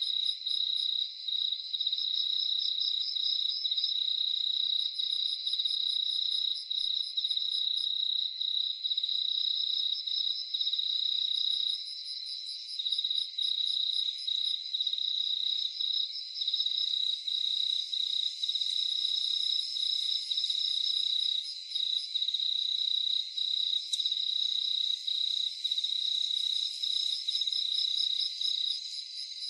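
Night chorus of crickets: one steady, unbroken high trill with a fast pulsing chirp layered above it. Short bursts of very high ticking from another insect come and go every few seconds.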